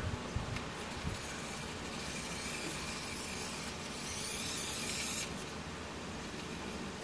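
Small electric drive motor and gearbox of a toy RC car running as the car drives back and forth, a steady hissing whir that grows stronger from about two seconds in to about five seconds in. A couple of low thumps come in the first second.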